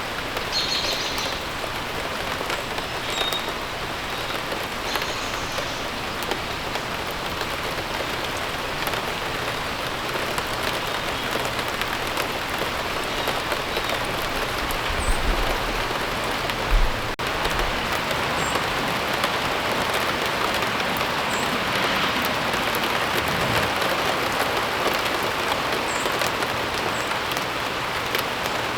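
Steady rain falling on surfaces, an even hiss of drops, with a few faint short high chirps scattered through. A brief low rumble and thump about two-thirds of the way in is the loudest moment.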